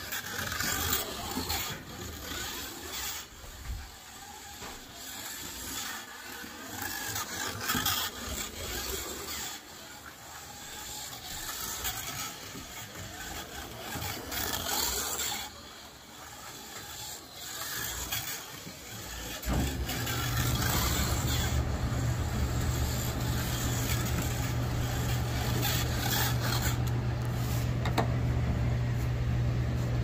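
1/24 scale slot car with a Bobcat 36D motor running laps on a plastic slot-car track: motor whine and the rattle of tyres and pickup on the track, rising and falling as the car comes past. About two-thirds of the way through, a louder steady low hum takes over.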